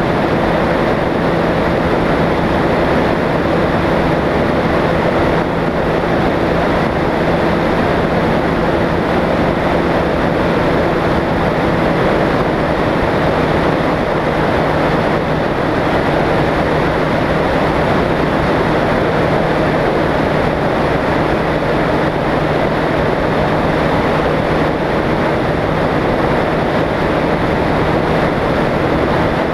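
Open weight-shift microlight trike in level flight: its engine drones steadily under a constant rush of air over the strut-mounted microphone, with no change in pitch or level.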